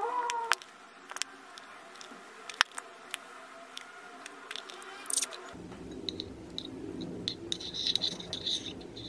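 Clear glue squeezed from a plastic bottle onto metallic colour in a glass bowl, with scattered small clicks. About five and a half seconds in, a metal spoon starts stirring the wet glue and colour: a soft, sticky squishing with light scraping against the glass.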